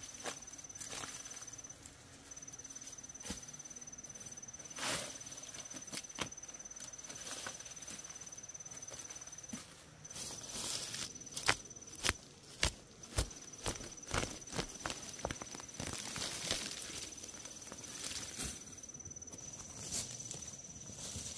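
An insect's steady high trill, breaking off briefly a few times, under scattered rustling, snapping and knocking from someone moving and working among plants. The clicks and knocks are busiest in the second half.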